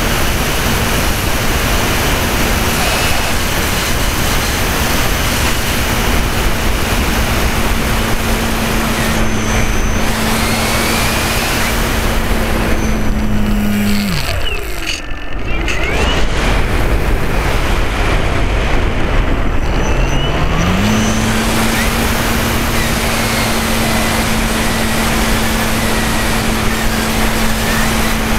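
Radio-control model airplane's motor and propeller heard from an onboard camera, a steady drone under heavy wind rush. About halfway through the drone falls away as the throttle is pulled back, and about six seconds later it glides back up to its earlier pitch as the throttle is opened again.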